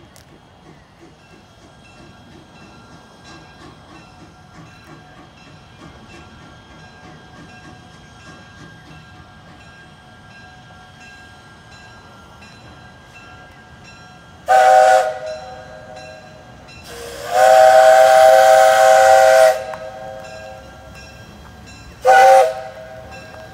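Steam whistle of a coal-burning 1928 0-4-0 tank steam locomotive, blown three times after a stretch of low rumble: a short blast, a long blast of about two and a half seconds, then another short blast. Each blast is a chord of several tones.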